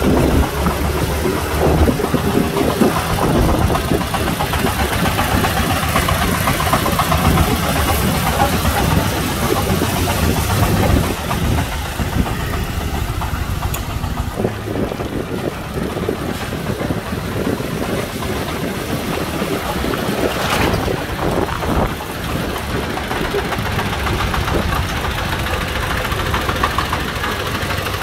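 Công nông's single-cylinder diesel engine running with a fast, even putter as the cart drives along the road. There is a short louder burst of noise about twenty seconds in.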